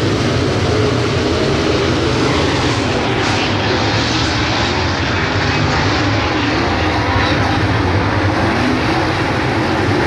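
A field of dirt late model race cars with V8 engines racing around a dirt oval, their engines making a loud, steady, continuous noise with no let-up.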